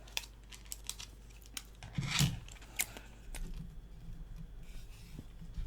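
Close-miked eating of spicy chicken feet and glass noodles: a run of sharp, wet clicks from chewing, with a louder, longer eating sound about two seconds in.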